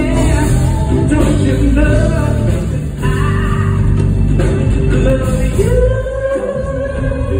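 Live R&B soul ballad: a male lead singer with a band of keyboard and guitar and backing singers, the singer holding one long note near the end.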